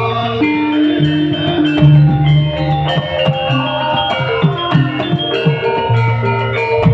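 Live band playing an instrumental passage: held melody notes over a steady bass line, with drums striking in a regular beat.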